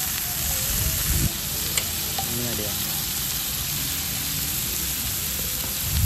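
Cheese sizzling on a tabletop charcoal barbecue grill pan, a steady hiss.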